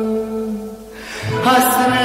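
Turkish art music (Türk sanat müziği): a long held note dies away just before a second in, and after a brief dip a new sustained note comes in.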